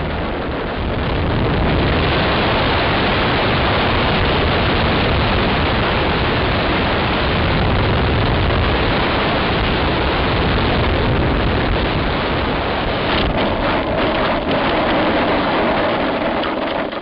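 Onboard sound of a radio-controlled scale model biplane in flight: its engine running under a steady rush of wind over the camera's microphone. A run of knocks comes near the end as the model is down on the grass.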